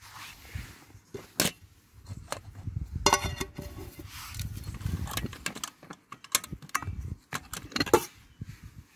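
Aluminium Trangia cook set being taken apart by hand: pans, lid and kettle clinking and clanking against each other. There is a sharp clink about a second and a half in and a ringing clank about three seconds in.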